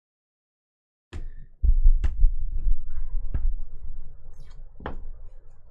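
Handling noise at a desk: a few sharp clicks and knocks over a low rumble, starting after about a second of dead silence.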